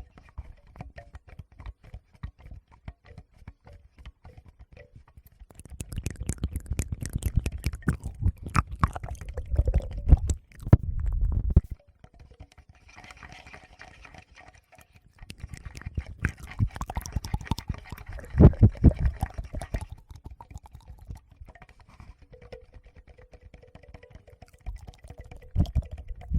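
Close-miked ASMR handling of a Tascam recorder's microphones: fingers tapping and rubbing on them in two long bursts of dense crackling with a deep rumble, with quieter wet mouth sounds between.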